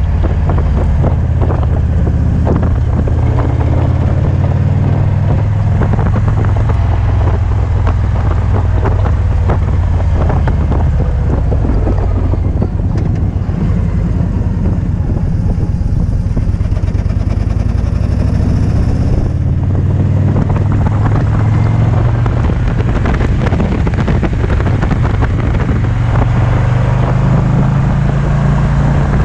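2008 Victory Vision's V-twin engine running as the motorcycle is ridden, under heavy wind buffeting on a helmet-mounted camera's microphone.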